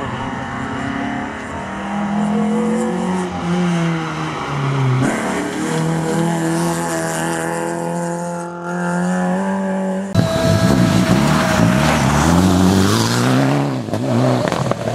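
Rally car engines at full throttle passing close by, the pitch climbing and falling back with each gear change. After a cut about ten seconds in, a Mitsubishi Lancer rally car passes louder, its revs sweeping up and down quickly.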